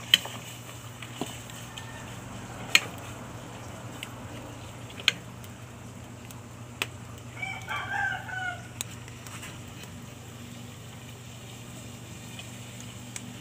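A rooster crows once, about seven seconds in, a bending multi-part call of about a second and a half. Several sharp, loud pops from the wood fire under the pot come at scattered moments around it.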